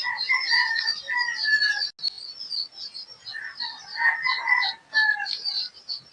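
Small birds chirping continuously, a quick high twittering, with louder, lower chirps from about the start to two seconds in and again from about three and a half to five seconds in. A single sharp click about two seconds in.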